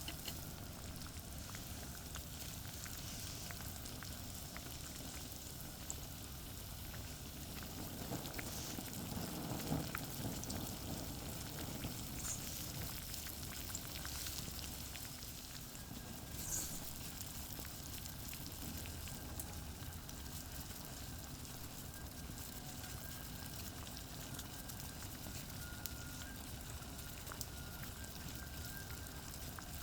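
Campfire over charcoal crackling with small pops, and food sizzling as it heats over it, against a steady hum of distant highway traffic.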